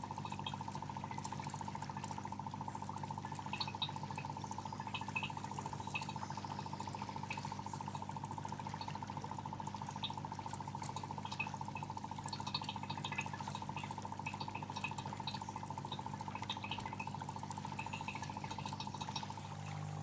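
Water bubbling and trickling over a steady low hum, with small irregular splashing clicks.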